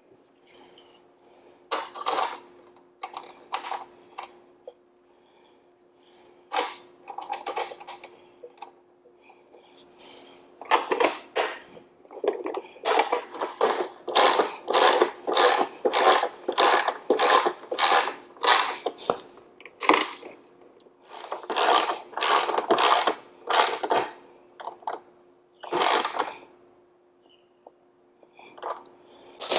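Ratchet wrench clicking in bursts while tightening bolts, here the bolts that fix a garage door opener's rail to its power head. Scattered strokes come at first, then a fast even run of clicks in the middle, then shorter groups.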